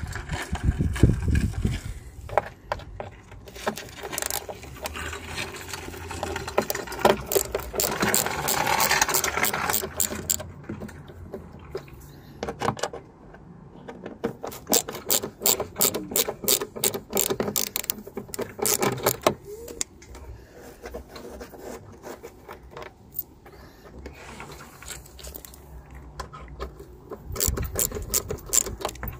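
Ratcheting screwdriver with a Torx T20 bit clicking in quick runs as screws are turned out of the plastic wheel-arch trim, with pauses between the runs.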